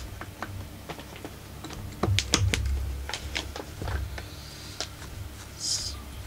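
Irregular clicks, taps and light knocks of a hand tool against the metal and plastic housing of a Husqvarna 44 chainsaw being taken apart, loudest about two seconds in.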